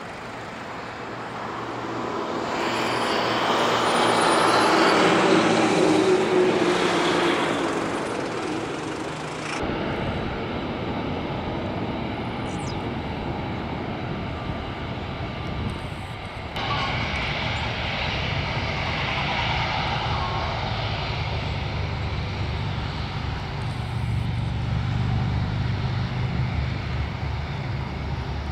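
Jet engines of an Airbus A330-200F freighter climbing away after takeoff. The sound swells to a peak about five seconds in, then fades with a falling tone. About ten seconds in, a cut brings in the steady rumble of a Boeing 747-8F freighter's four GEnx engines as it rolls slowly along the runway.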